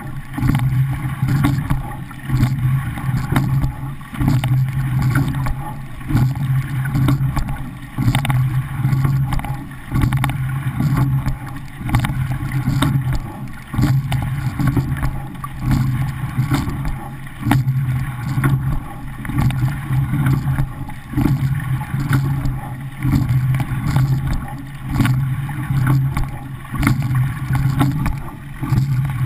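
Racing rowing shell (a sweep pair) under way: water rushing along the hull and wind on the bow-mounted microphone, swelling with each stroke about every two seconds, with small clicks scattered through it.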